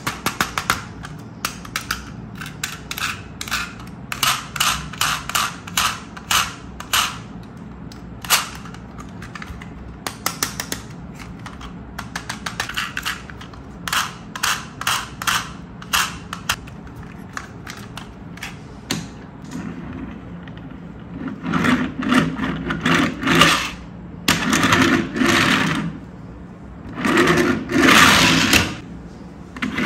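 Quick clicks and taps of a small toy truck being handled, then the truck's plastic wheels rolling over a wooden tabletop in about three louder pushes in the last third.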